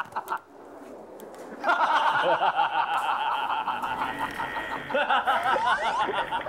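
Several people laughing and shrieking in quick pulses. The laughter drops to a brief lull about half a second in and picks up again at full strength just under two seconds in.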